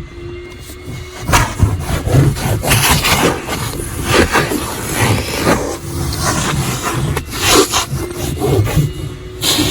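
Petrol-station coin-operated car vacuum running, its hose nozzle dragged back and forth over the car's carpet and upholstery in irregular scraping strokes.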